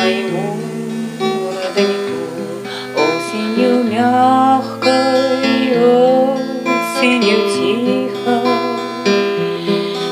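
Background music from a Russian ballad: acoustic guitar over held bass notes, with a wavering melody line, in a gap between sung lines.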